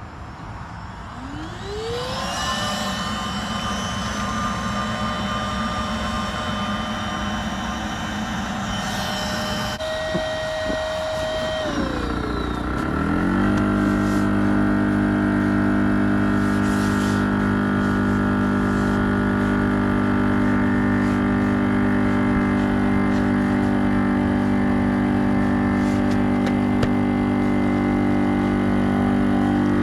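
OutdoorMaster Shark2S electric inflation pump inflating the floor chamber of an inflatable kayak. It spins up about a second in and runs at a steady whine. About twelve seconds in it winds down and restarts with a lower, louder steady hum, typical of a two-stage pump changing from its high-volume stage to its high-pressure stage as the chamber firms up.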